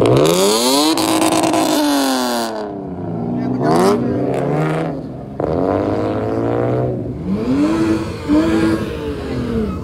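A car's engine revved hard several times, its pitch climbing steeply and dropping away in repeated sweeps. The loudest surge comes right at the start.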